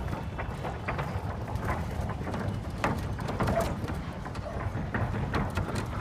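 A building shaking in an earthquake: a steady low rumble with many irregular knocks and rattles.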